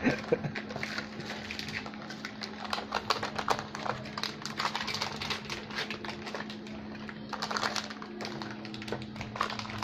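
Small cardboard box and plastic bags handled during unpacking: irregular quick clicks, taps and crinkles, over a steady low hum.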